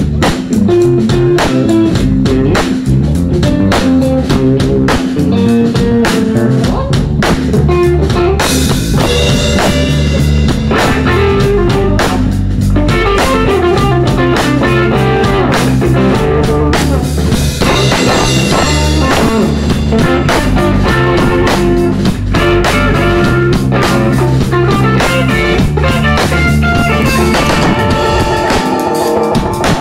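Live rock band playing an instrumental passage with electric guitars and drum kit. Cymbals come in after about eight seconds.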